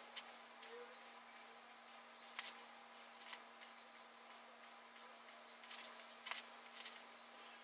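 Faint, scattered clicks and taps, about six of them, as a small brush dabs and works sticky green gelcoat over an aluminium mould plug.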